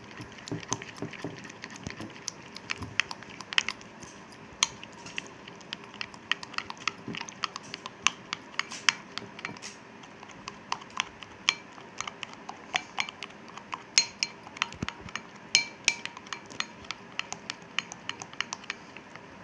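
Metal spoon beating thick batter in a glass bowl: irregular clinks of the spoon against the glass, several a second.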